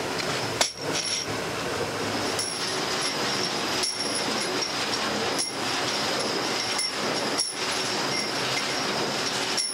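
Steady workshop noise with the clinking of brass tractor pins being handled in sacks, broken by several very brief dropouts.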